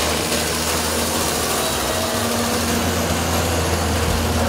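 Hydraulic excavator's engine running steadily with a deep, even hum as the machine digs mud out of floodwater.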